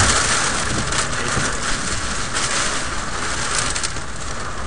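Heavy rain and gusting wind hitting the car: a loud, steady rushing hiss that swells and eases. It is the rear-flank wind and rain just behind a tornado that has passed over.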